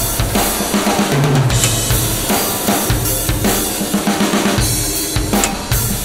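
Soundtrack music with a steady drum-kit beat and heavy bass drum.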